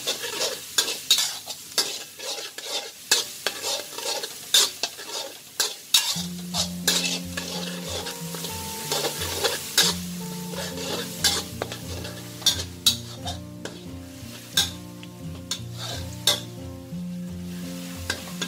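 Minced garlic sizzling in hot oil in a metal wok while a metal spatula scrapes and clacks against the wok in quick, uneven strokes. Soft background music comes in about six seconds in.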